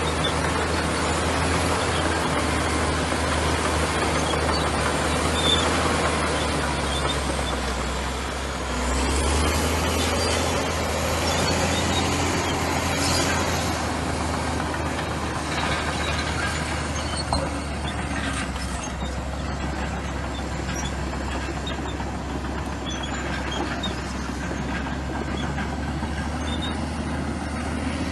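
Komatsu bulldozer's diesel engine running steadily while it works, with a constant low hum under a broad mechanical clatter that swells briefly about a third of the way in.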